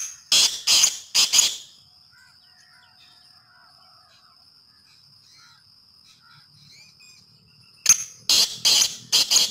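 Caged francolin (teetar) calling: a loud phrase of harsh, grating notes right at the start, then another phrase of four such notes near the end.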